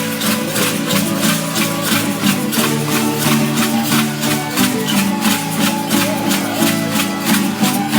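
Traditional folk dance music played on plucked strings, with a rattle or shaker keeping a quick, steady beat.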